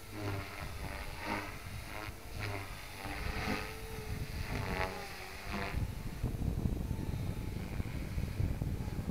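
Electric RC helicopter's main rotor blades swelling in repeated bursts of pitched whirring about once a second during aerobatic flight, for about the first five and a half seconds. After that, wind buffeting the microphone covers it.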